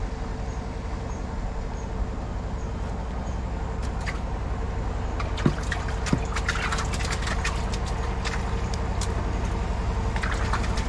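Steady low drone of a motor running at an even speed, with a faint pulsing rhythm. Light scattered clicks and crackles come over it in the middle.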